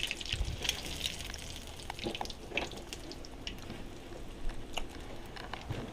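Trout fillets frying in a pan of hot oil, sizzling steadily with scattered crackles and pops.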